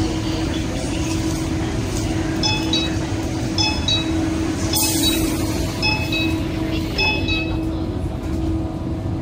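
Door-closing warning chimes in a stationary metro car: short groups of high electronic tones sound four times, with a brief hiss about five seconds in. Under them runs the steady hum of the Siemens-Adtranz train's equipment with a pulsing low tone.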